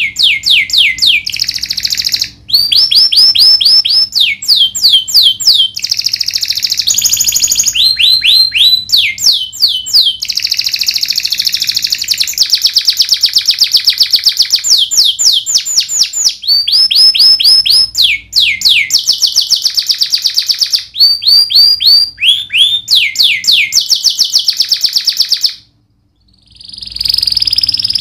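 Domestic canary singing in long, continuous phrases: runs of quick down-slurred whistles alternating with fast, buzzy rolling trills. The song breaks off briefly about 26 seconds in, then resumes.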